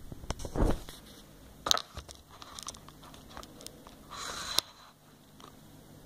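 Handling noise on a desk: a few knocks and a low thump near the start, scattered light clicks, then a short rustle ending in a sharp click about four and a half seconds in.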